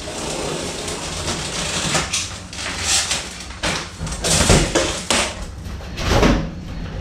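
Cardboard and plastic packaging being pulled, torn and rustled while an appliance is unboxed, with irregular scrapes and a couple of heavier bumps about four and six seconds in.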